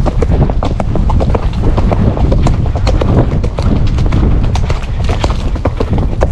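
Hoofbeats of a ridden horse going along a soft dirt woodland track, heard close from the saddle, over a constant low rumble.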